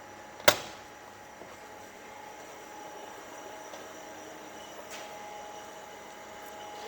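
A sharp click as the plug goes in or the switch is flicked, then the glycol pump running with a steady faint hum.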